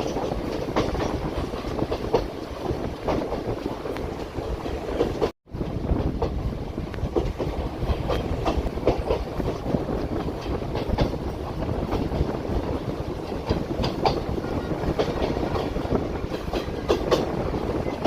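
Passenger train running, its wheels clicking and knocking over the rail joints with a steady rumble and rattle of the carriages. The sound cuts out completely for a moment about five seconds in, then carries on the same.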